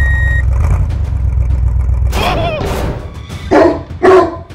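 A dog barking: one call about two seconds in, then two short barks near the end. A low rumble is heard during the first two seconds.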